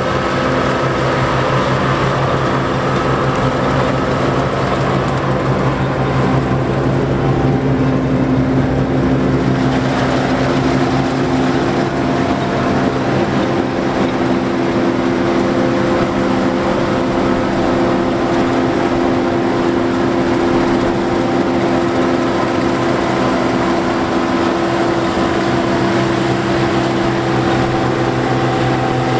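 John Deere 4425 combine running steadily while harvesting wheat, an engine drone over the clatter of the machine; its tone shifts slightly about eight seconds in.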